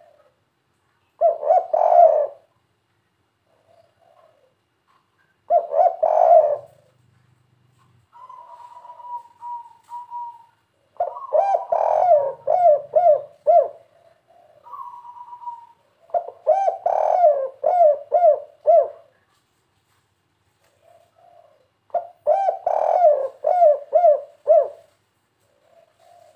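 Spotted dove of the 'kuk 3' call type cooing. Five phrases come a few seconds apart, each a quick run of several coo notes.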